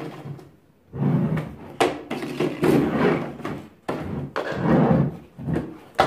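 Plastic body and dust container of a Philips PowerCyclone 5 canister vacuum being turned over and handled on a table: a series of clunks, scrapes and rattles, with a sharp knock at the end.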